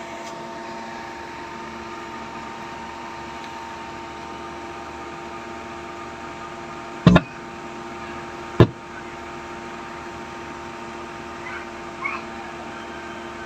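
Steady electrical hum with a few faint steady tones in it, broken by two sharp clicks about a second and a half apart, a little past halfway.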